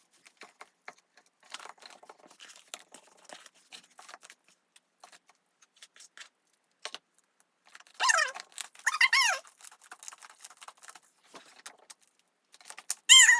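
Quick, light clicks and clinks of containers and utensils as slime ingredients are handled and mixed, running fast as if sped up. About eight seconds in, a high wavering call sounds twice in quick succession.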